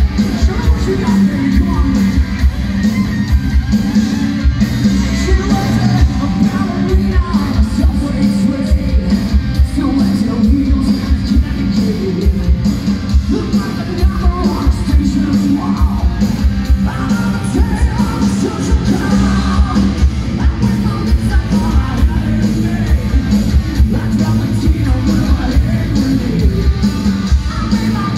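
Live hard rock band playing at full volume: distorted electric guitars, bass and a steady drum beat, with a male lead singer singing over it.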